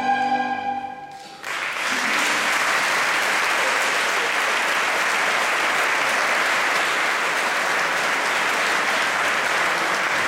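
The final held chord of a children's choir with instruments dies away about a second in. Then audience applause breaks out and continues steadily.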